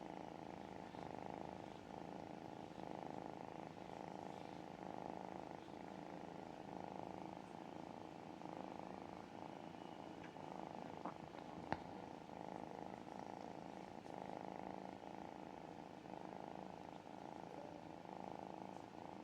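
Kitten purring steadily and softly, the purr swelling and easing with each breath in and out. A single sharp click about two-thirds of the way through.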